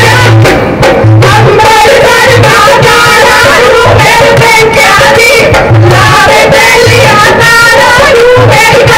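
Loud Punjabi folk song with female singing over a low drum beat that thumps about once a second, played for a stage dance.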